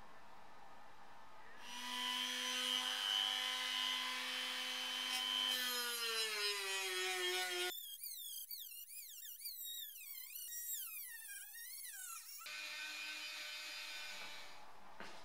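Handheld rotary tool spinning an abrasive finishing pad against a steel dashboard mounting plate to strip rust. A steady motor whine starts about two seconds in. Its pitch sags, then wavers up and down as the pad is pressed onto the metal.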